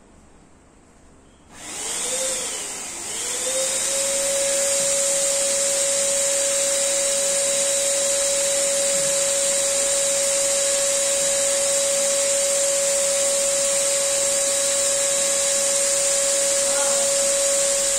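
Electric air pump switching on about one and a half seconds in, winding up with a brief dip in pitch, then running steadily with a loud, high hiss of air, inflating an inflatable boat through a hose.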